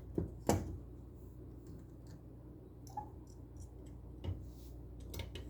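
A few light clicks and taps, the sharpest two within the first half-second, then scattered fainter ones, over a faint low steady hum.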